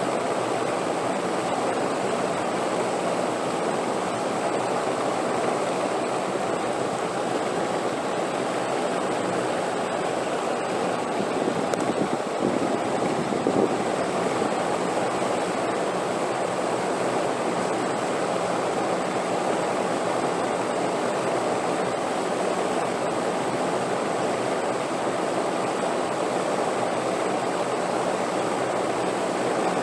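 Steady wind noise, a continuous even rush, swelling briefly about twelve seconds in.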